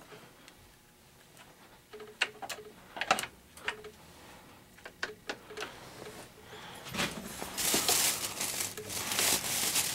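Scattered metallic clicks and clunks as the levers and brass wing-nut fittings of a 1922 Dalton lathe are worked by hand. About seven seconds in comes a longer, denser scraping and rustling as the hand works at the headstock's belt pulley.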